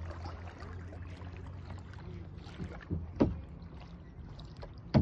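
Kayak being paddled on calm water: a steady low rumble with sudden strokes of the paddle, two close together about three seconds in and another at the very end.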